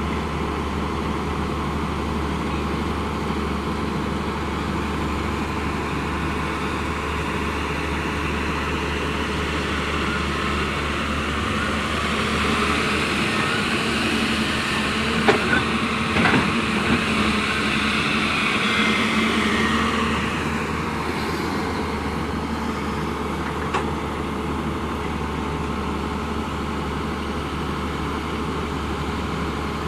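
Heavy diesel machinery engine running steadily, revving up under load for several seconds around the middle and then settling back, with a few sharp knocks while it is revved.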